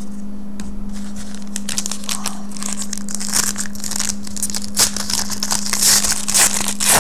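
Foil trading-card pack wrapper crinkling and crackling as it is handled and torn open, sparse at first and dense from about three seconds in, over a steady low hum.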